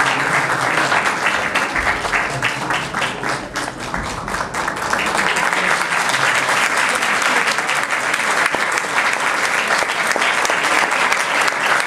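Audience applauding: many hands clapping steadily, easing off briefly about a third of the way in and then picking back up.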